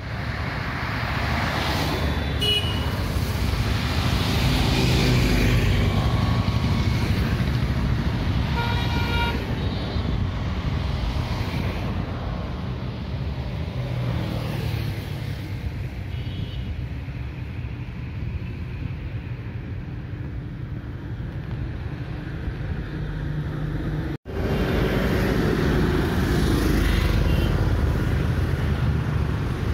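Road traffic: a steady rumble of passing vehicles, with several short horn toots, the clearest about nine seconds in. The sound drops out for a moment about 24 seconds in.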